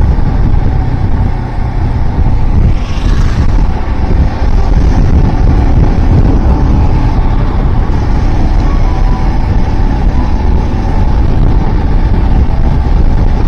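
Wind buffeting the microphone over the steady engine and road noise of a Royal Enfield Himalayan's 411 cc single-cylinder engine cruising at highway speed.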